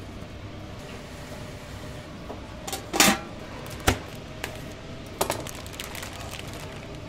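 Kitchen utensils and dishes clattering: a handful of sharp clinks and knocks, the loudest about three seconds in with a brief ring, another just before four seconds and a quick pair a little after five, over a steady low background noise.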